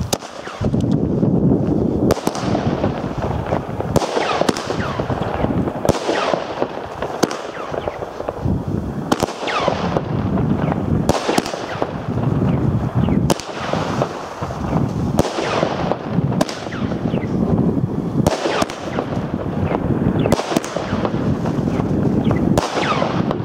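Weco Detonator firework battery firing, shot after shot launching and bursting, with a sharp bang about every one to two seconds and a steady rushing noise in between.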